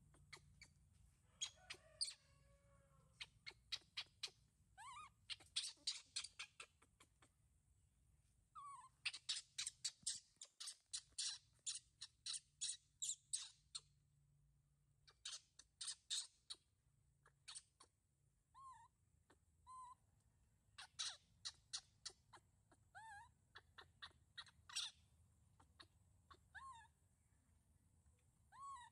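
Birds chirping: runs of sharp, high chips in quick series, broken by short pauses, with a short rising call now and then.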